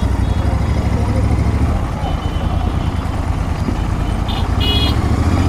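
Royal Enfield Continental GT 650's parallel-twin engine running through aftermarket Gursewak Big Shot exhausts at low, steady revs while riding slowly, easing off a little around the middle. Two short high beeps sound near the end.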